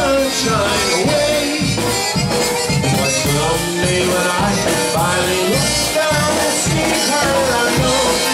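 Live polka band playing a steady two-beat rhythm, with a button concertina carrying the melody over bass and drums.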